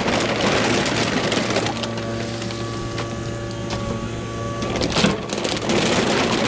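Kubota KX080 excavator's diesel engine running steadily with a hydraulic whine as the bucket drags and tears the vinyl pool liner and debris, making continuous crackling and scraping. A sharp crack stands out about five seconds in.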